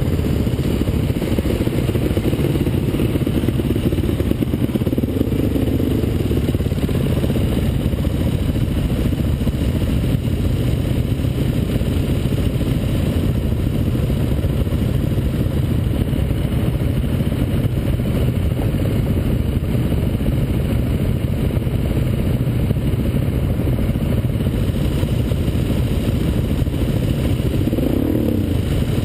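Motorcycle engine running steadily while riding, a dense low rumble with no marked revving.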